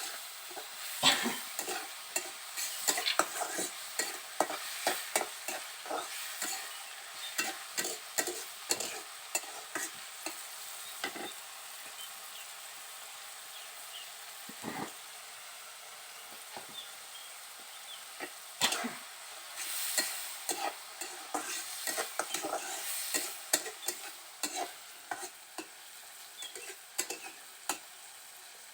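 Onions, garlic and green chillies sizzling in a little oil in a pan, with a spatula stirring and scraping against the pan in quick, irregular strokes. The stirring eases off for a few seconds near the middle, leaving mostly the sizzle.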